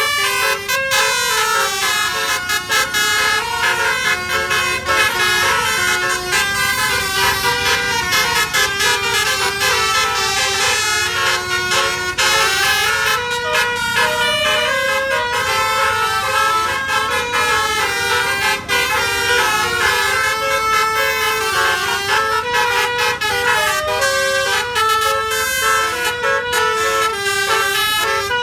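Basuri melody horn driven by a DAV air horn tone module, playing a tune as a run of quick stepped notes without a break.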